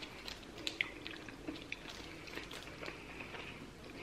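Faint crinkling and crackling of a small plastic candy wrapper being picked and peeled open by fingertips, in a scatter of short irregular clicks.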